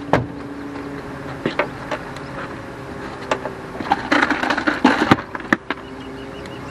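Sharp knocks and clatters from handling gear in a boat cooler, thickest around four to five seconds in, over a steady low motor hum.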